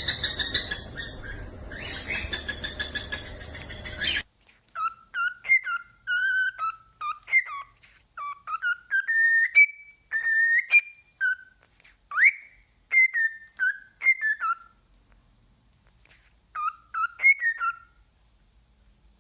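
Parrot whistling: a held, pulsing call for the first few seconds, then a string of short, clear whistled notes that slide up and down in quick phrases, stopping shortly before the end.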